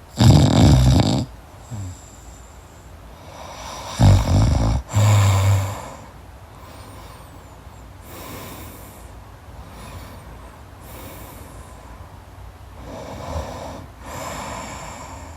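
A person snoring in deep sleep with a crackling sound: one loud snore right at the start, two more back to back about four seconds in, then softer, airy breaths.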